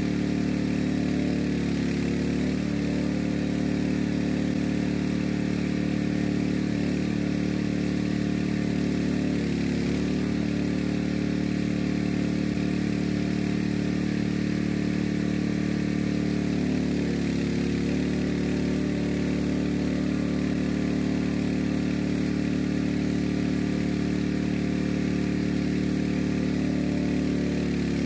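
Small gasoline engine of a well-jetting rig running steadily at constant speed, powering the pump that jets water down the bore.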